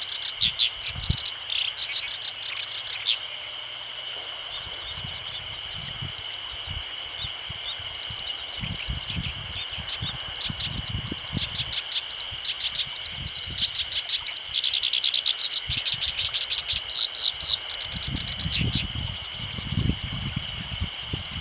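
Black-browed reed warbler singing: rapid runs of short, varied high notes delivered in bursts, with a pause of a second or so about three and a half seconds in.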